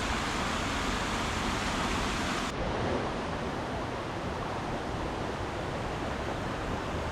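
Steady rush of river water, an even hiss. Its highest part drops away abruptly about two and a half seconds in.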